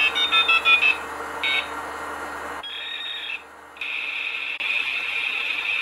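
Electronic tone, like a buzzer or alarm: a quick run of short beeps in the first second, then a steady high-pitched tone that breaks off briefly about three and a half seconds in and resumes.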